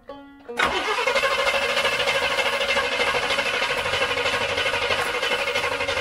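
Carbureted V8 in a 1964 Rambler American cranking on the starter without catching. The steady churning starts suddenly about half a second in and keeps going.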